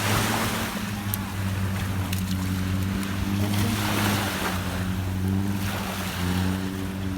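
Boat engine running at a steady low drone, with the rush of wind and sea water over it.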